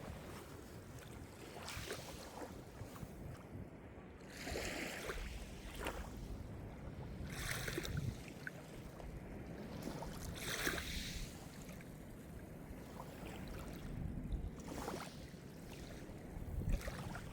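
Calm sea surf: small waves breaking and washing ashore about every three seconds, each a hissing swell over a steady low rumble of the sea.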